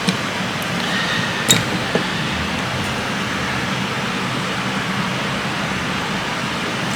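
Steady fan-like background hum, with a light click about a second and a half in and another half a second later.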